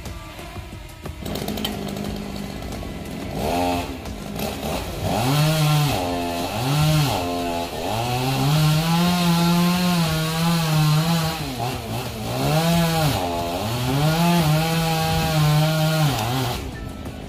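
Two-stroke chainsaw revving up and down in short bursts, then held at full throttle for a few seconds at a time while it saws through a coconut palm trunk. The engine drops away near the end.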